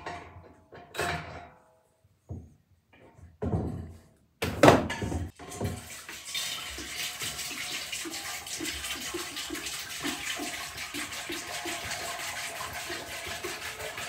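Water poured from a plastic jug into a stainless steel tank: a steady splashing, with a rhythmic glugging about three times a second as air gurgles back into the jug. Before the pour starts, a few knocks and one loud thud as the jug is handled.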